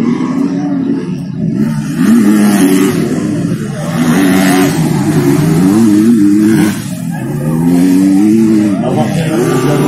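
Motocross bike engines revving loudly, the pitch climbing and falling again several times in quick succession.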